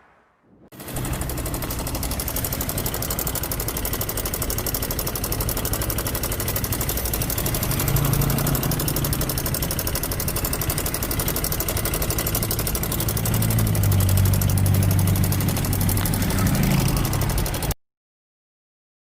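Yamaha Mio Soul i 125 scooter engine running with a loud, very rapid metallic rattle from the side of the engine, the engine note rising twice. The rattle is later traced to the cam chain tensioner. The sound cuts off suddenly near the end.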